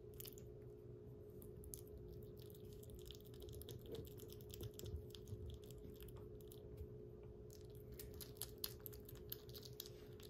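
Kitten chewing soft weaning food: faint, quick little clicks of eating scattered throughout, over a steady low hum.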